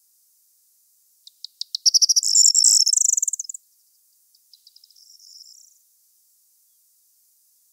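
Corn bunting singing: a few sharp ticks quicken into a fast, high, rattling trill, the loudest part. A quieter, shorter phrase follows about a second later.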